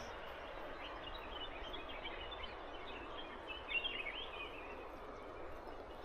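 Quiet outdoor ambience: a steady soft hiss with scattered faint, high bird chirps, the clearest little cluster just under four seconds in.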